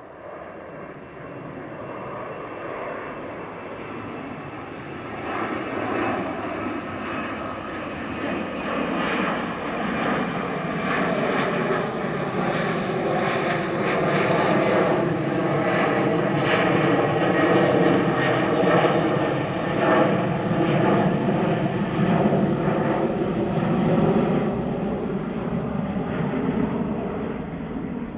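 Boeing 737-800 airliner's CFM56-7B turbofan engines climbing out after takeoff and passing overhead: a rushing jet noise that builds steadily, is loudest a little past the middle, and eases off near the end, with a slow sweeping tone running through it.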